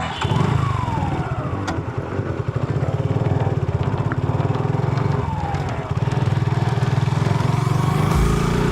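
Suzuki Gixxer SF motorcycle's exhaust running at a steady, pulsing note. Near the end its pitch starts to climb as the engine revs up.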